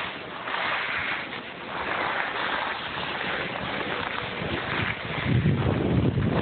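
Rushing noise of riding down a snow slope: wind on the microphone mixed with the hiss of a snowboard sliding over snow, swelling and fading, with a louder low rumble about five seconds in.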